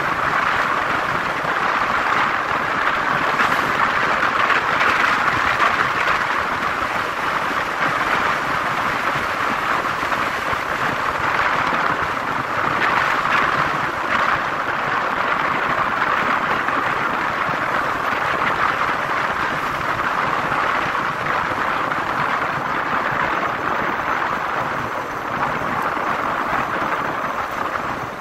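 Motorcycle riding along a paved road at steady speed: an even rush of wind and road noise with the engine underneath.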